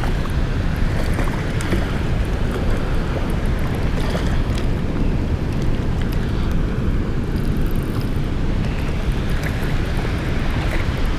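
Steady rushing of water pouring through a river spillway, with wind rumbling on the microphone.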